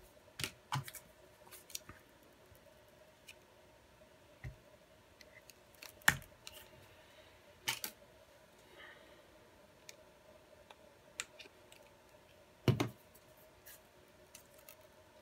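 Hands handling a glue tube and small parts on a rubber repair mat: scattered light clicks and taps, the sharpest about six seconds in and again near the end, over a faint steady hum.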